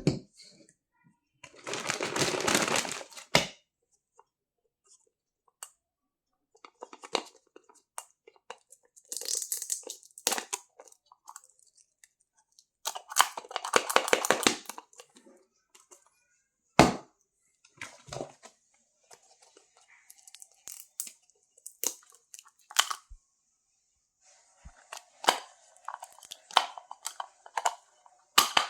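Toy packaging being opened by hand: crinkling and tearing of plastic wrap in several bursts, with sharp clicks and taps of small objects being handled in between.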